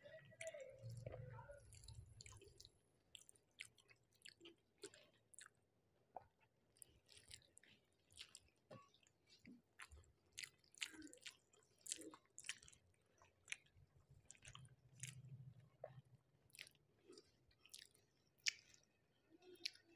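Faint, close-up chewing of a mouthful of rice and curry, with many small wet mouth clicks and lip smacks, several a second, all the way through.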